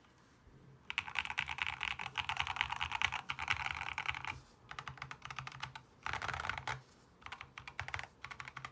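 Typing on a Lumberjack mechanical keyboard with Agile Moon switches, a two-layer tape mod and foam-filled GH60 plastic case. Typing starts about a second in, as fast runs of key clicks broken by short pauses.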